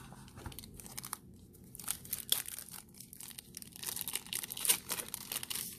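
Clear plastic wrapper crinkling and crackling in irregular bursts as it is handled and opened to take out a phone battery.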